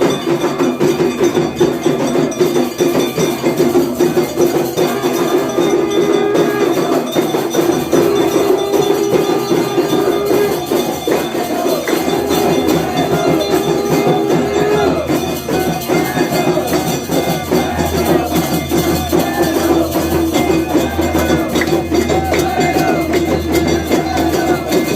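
Hindu temple aarti music: bells, cymbals and drums struck in a fast, unbroken clatter, with long held notes over it. A deep low hum joins about two-thirds of the way through.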